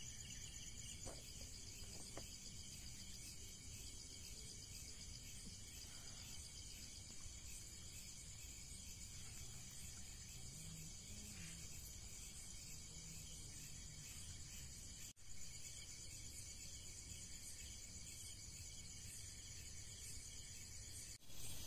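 Steady chirring chorus of night insects, several high-pitched voices at once with a fine pulsing rhythm. The sound drops out briefly twice in the second half.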